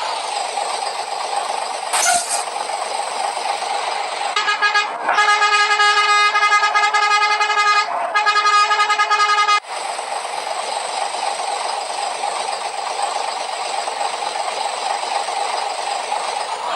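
Bus horn sounding three blasts on one steady pitch, the middle blast the longest, over steady traffic noise. A short hiss comes about two seconds in.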